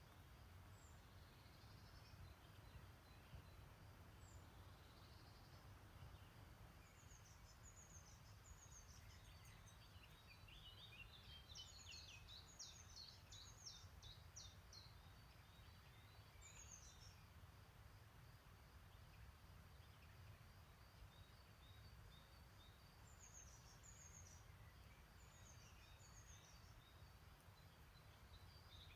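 Faint birdsong: small birds singing short, quick chirping phrases, busiest about a third of the way in and again near the end, over a steady low rumble.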